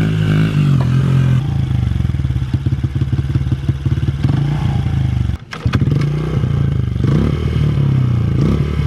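Small 70 cc Honda four-stroke single-cylinder dirt bike engine running under throttle, its firing pulses rapid and uneven as it is ridden. The sound breaks off sharply about five and a half seconds in, then picks up again.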